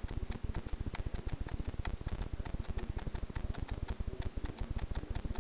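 Rapid, fairly even clicking that runs on throughout.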